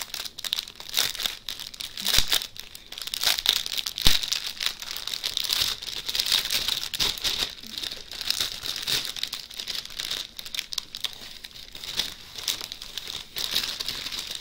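A clear plastic sleeve crinkling as it is unrolled and handled to get out the small bags of rhinestone drills packed inside. It is a continuous crackle with many small clicks, and two sharper knocks come about two and four seconds in.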